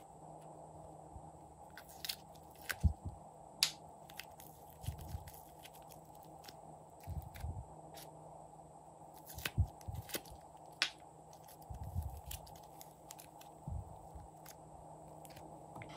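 Scattered light clicks and crackles with a few soft low thuds as slime and its clay and foam toppings are handled, over a steady faint background hum.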